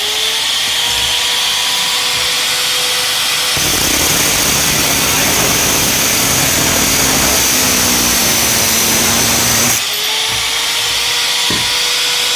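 A small electric motor running at speed with a steady whine and hiss. About three and a half seconds in the sound shifts to a broader rushing noise, then returns to the earlier whine near ten seconds.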